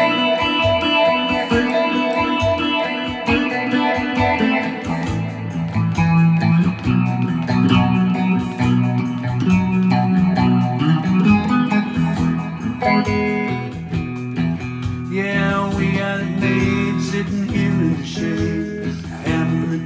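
Guitar music without singing: an instrumental break, with melody lines picked over steady accompaniment.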